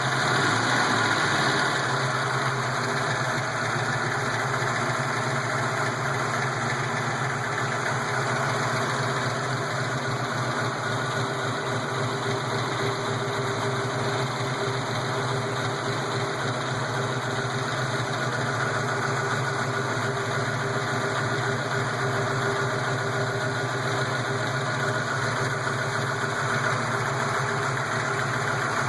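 A 331 cubic-inch V8 idling steadily as it is run from a cold start toward operating temperature, with the lifter noise the owner is checking. The level eases slightly in the first couple of seconds, then holds even.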